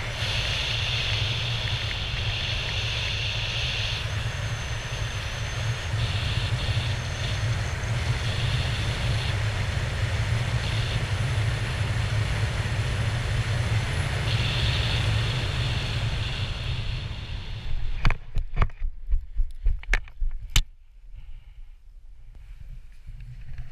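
Wind rushing over the camera microphone during a parachute descent, a steady rumble with hiss that fades about 17 seconds in. It is followed by a quick run of knocks and rustles as the skydiver touches down on grass, after which only a faint hiss remains.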